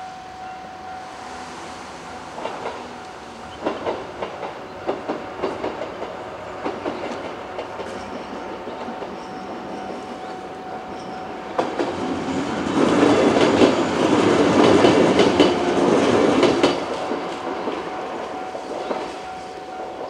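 Japanese level-crossing alarm ringing steadily while a two-car 103 series electric train approaches, its wheels clacking over the rail joints. The train passes close and loud from about two-thirds of the way in, and the alarm goes on ringing after it.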